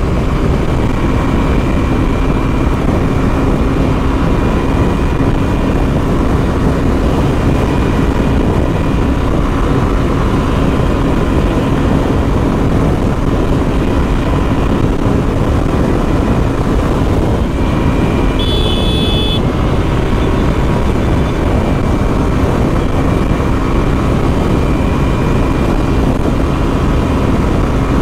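Yamaha Fascino scooter on the move: steady, loud rushing noise over the even drone of its engine. A brief high beep comes about two-thirds of the way through.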